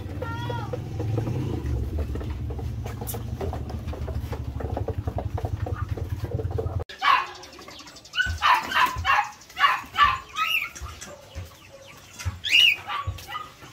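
A steady low rumble with one short animal call near the start; then, after an abrupt cut, a quick run of loud, sharp animal calls, with two more near the end.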